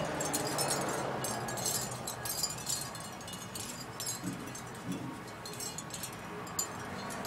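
A brush working through hair: dry, scratchy rustling in quick, irregular strokes.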